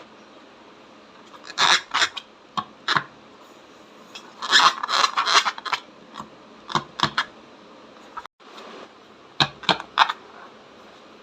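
Slime being squished and worked by hand, giving irregular bursts of sticky clicks and crackles over a steady background hiss.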